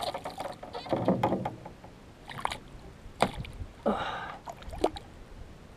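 Water splashing in irregular bursts as a small tarpon thrashes in a landing net held against the side of the boat, with a sharp knock about three seconds in.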